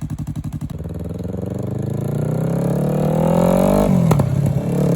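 2017 Yamaha R3's parallel-twin engine pulling away from idle: the revs climb steadily for about three seconds, drop sharply about four seconds in as it shifts up, then climb again.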